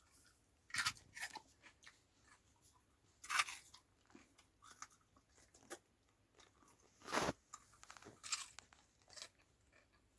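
A person biting and chewing raw potato close to the microphone: several sharp crunches a few seconds apart, with softer chewing between.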